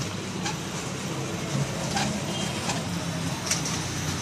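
Small kiddie ride train running along its track, a steady low hum with a few sharp clicks.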